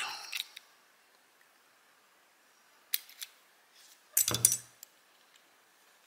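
Sharp metal clicks from pliers working on a dimple lock cylinder as it is taken apart: two short clicks about three seconds in, then a louder clattering snap with a dull knock a little over four seconds in.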